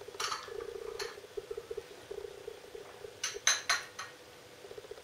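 China teacup and saucer being handled and sipped from: a few soft clinks and sips near the start, and three close together about three and a half seconds in, over a steady buzzing hum.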